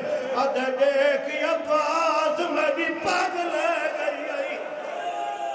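A man's voice chanting mournful verses in a sung style into a microphone, wavering on held notes.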